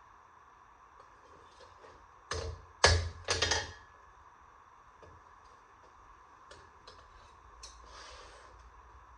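A quick cluster of three or four sharp knocks over about a second and a half, a little over two seconds in, against a steady background hum with faint ticks.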